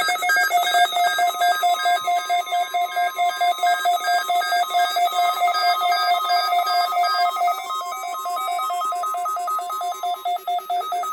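Electronic alert tone of an emergency alert test on NOAA Weather Radio: a loud stack of electronic tones that stutters on and off many times a second, like a ringing bell, and starts suddenly just after a short data burst.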